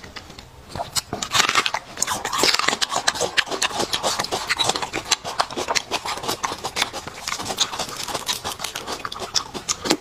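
Close-miked eating sounds from a braised beef marrow bone: a metal spoon scraping marrow out of the bone and wet, sticky mouth clicks of chewing, a dense crackle of small clicks starting about a second in.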